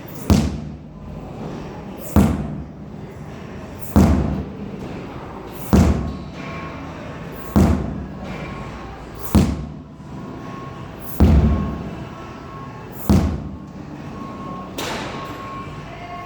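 Sledgehammer slamming down onto a large tire in a steady rhythm: about nine heavy thuds, roughly one every two seconds, the last one weaker.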